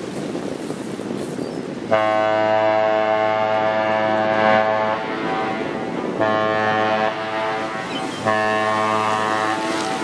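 Ship's horn of the 1943 Great Lakes bulk carrier Mississaugi sounding one long blast of about three seconds, then two short blasts: the long-and-two-short master's salute. Steady wind on the microphone runs underneath.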